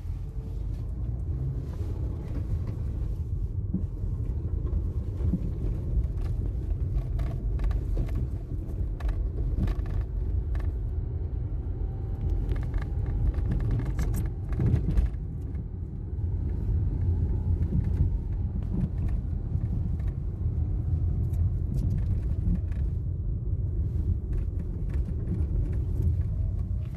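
2012 Citroën C3 driving over an uneven street: steady road and tyre rumble with repeated irregular knocks and rattles from the front suspension, on both sides. Among these noises is the knock of a front anti-roll bar bushing that has play.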